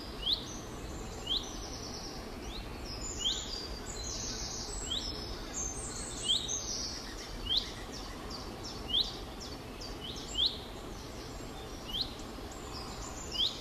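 A bird chirping repeatedly: short, high chirps that slide downward in pitch, coming about once or twice a second over steady faint background noise.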